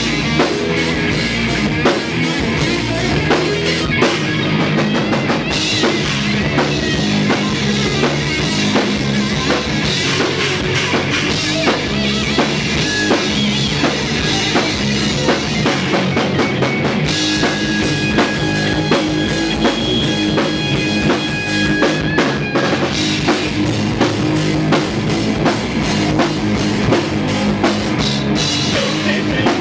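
Rock band playing live, loud and dense: a drum kit with a pounding bass drum, under electric guitars and bass. A sustained high guitar line comes in midway.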